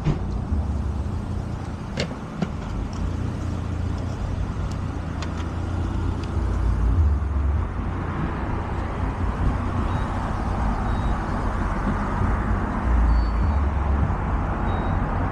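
Steady low vehicle rumble, with a few sharp clicks a couple of seconds in and a hiss that builds from about halfway through.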